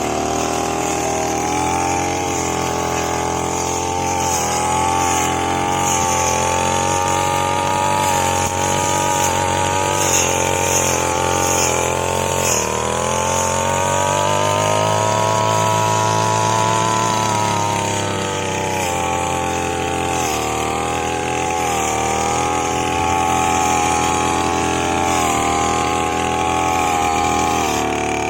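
Small petrol grass cutter engine running steadily at speed. Its pitch wavers, drops for a few seconds about halfway through, then climbs back.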